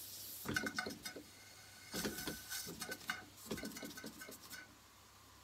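Small Mamod live-steam engine being flicked over by hand at the flywheel, giving short bursts of rapid clicking and puffing, about four in all, each dying away within a second: the engine is not yet running on its own.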